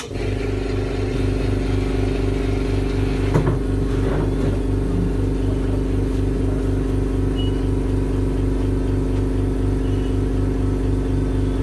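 A motor running steadily with a low, regular pulsing throb under a steady hum, starting suddenly. There is a brief knock about three seconds in.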